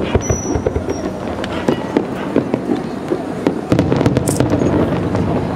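Fireworks going off: a rapid, irregular string of bangs and crackles that grows louder and denser a little past halfway.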